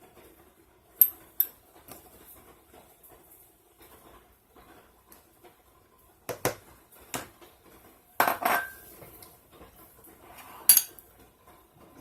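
Dishes and kitchen utensils clinking and clattering in a handful of separate sharp strikes as ingredients are added to a mixing bowl.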